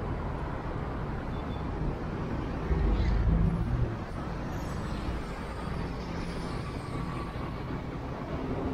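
Busy city-street traffic: a steady wash of passing vehicles on a downtown avenue. A vehicle's low rumble swells to its loudest about three seconds in, then fades back into the traffic.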